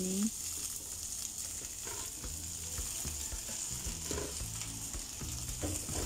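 Napa cabbage and green sawi leaves sizzling in hot oil in a wok, stirred and tossed with a metal spatula: a steady hiss with light scraping of the spatula against the pan.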